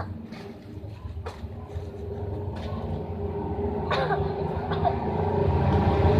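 A steady low motor hum growing louder, with a few short, sharp sounds on top.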